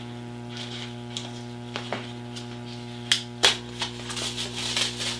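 Sublimation transfer paper being peeled off heat-pressed adhesive vinyl: scattered crackles and ticks that come quicker from about three seconds in. A steady electrical hum runs underneath.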